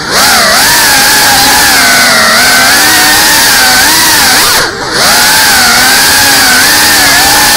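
GEPRC CineLog35 FPV quadcopter's brushless motors and propellers whining loudly, the pitch wavering up and down constantly with the throttle. The sound drops briefly about two-thirds of the way through, then picks up again.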